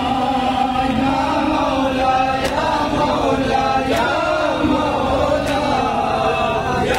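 Group of men chanting a noha in unison, a lead voice carried over a microphone. Sharp slaps land about every second and a half from rhythmic chest-beating (matam).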